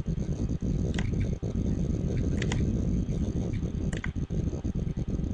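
A few faint sharp clicks of a computer mouse, about a second and a half apart, over a low steady rumble.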